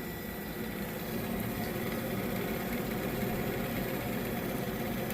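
Refrigerator fan motor running, its blade wobbling a little on the shaft and making a little bit of a noise: a steady hum with a fast flutter that grows slightly louder about a second in. The wobble comes from how far out the blade sits on the motor shaft.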